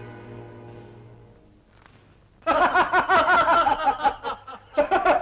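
Soft sustained background music fading out, then about two and a half seconds in, men burst into loud, hearty laughter in rapid ha-ha pulses, breaking off briefly near the end and starting again.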